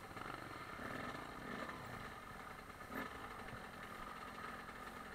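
Dirt bike engine running steadily at low speed while the bike is ridden along a trail, with a single knock about three seconds in.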